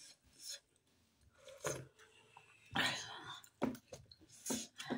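People eating dumplings with spoons: quiet chewing and scattered spoon clinks on plates and a steel bowl, with a short breathy vocal sound about three seconds in.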